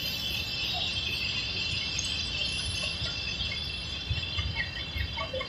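Train of loaded ballast hopper wagons rolling slowly past, a low rumble of the wheels on the track that turns into uneven thumps from about four seconds in. Under it runs a steady high-pitched shrilling.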